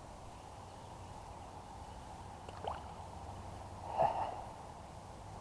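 Steady, quiet outdoor background noise with two short breathy sounds: a faint one past the middle and a louder one about four seconds in.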